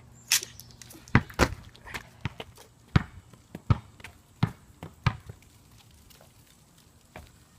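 A ball bouncing on a hard floor: about a dozen sharp knocks at uneven spacing that stop about five seconds in.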